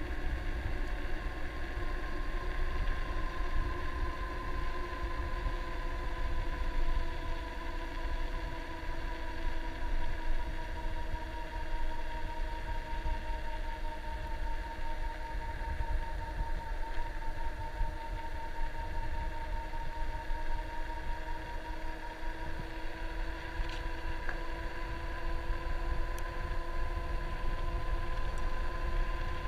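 Electric bike's motor whining steadily under power, its pitch sagging a little through the middle and rising again toward the end, over a low wind rumble on the microphone.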